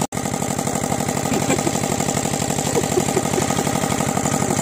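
A 5 hp single-cylinder diesel engine runs steadily at a constant speed with an even, regular firing beat while it drives a water pump.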